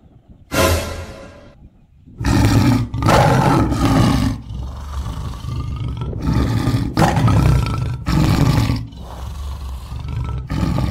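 Recorded tiger roars: one short roar about half a second in, then a run of loud roars from about two seconds in, coming in several bursts with brief gaps.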